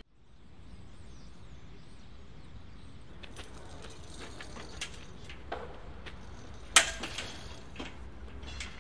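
Aluminium marquee tent frame clanking and clicking as it is raised by hand, scattered metal knocks over a steady low outdoor rumble, with one loud clank about seven seconds in.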